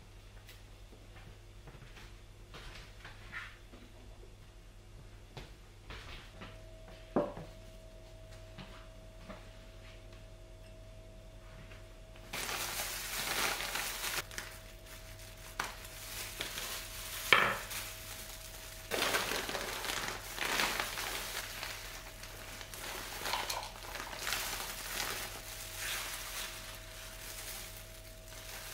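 Houseplant repotting: a few light clinks and knocks of a plant pot being handled, then from about halfway a denser run of scraping and rustling as potting soil is worked, with a sharp knock a little later.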